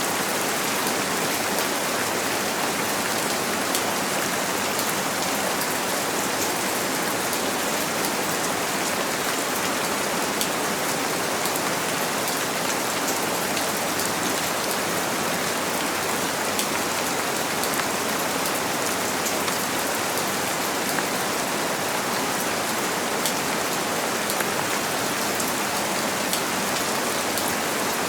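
Steady rain pattering on a window pane, an even hiss with scattered faint drop ticks, blended with white noise.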